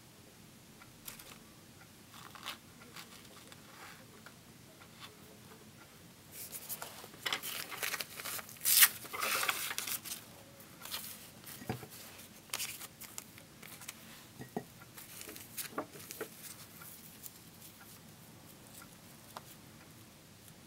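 Thin white paper being torn and crumpled by hand: a run of rustling tears through the middle, loudest just before halfway, with scattered small clicks and paper rustles around it.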